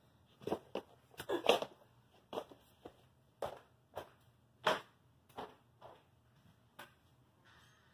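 A series of about a dozen irregular sharp knocks and clicks, unevenly spaced, the loudest about a second and a half in and again near five seconds.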